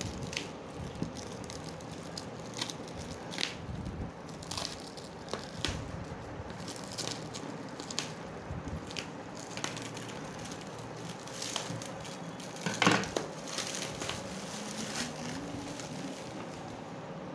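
Clear plastic wrapping crinkling and crackling as it is cut with scissors and pulled off a cardboard carton, in irregular rustles and snips, with one louder crackle about two-thirds of the way through.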